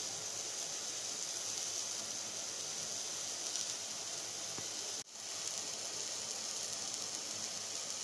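A steady, high-pitched hiss that drops out for an instant about five seconds in.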